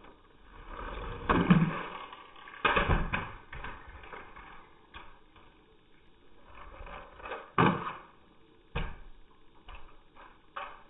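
Irregular knocks and clatters of small plastic LEGO cars crashing and tumbling, the loudest hits about a second and a half in and near three seconds in, with another sharp hit past the middle and lighter knocks near the end.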